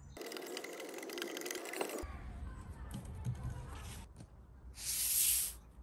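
A short, loud burst of hiss, under a second long, about five seconds in, after a stretch of quieter noise.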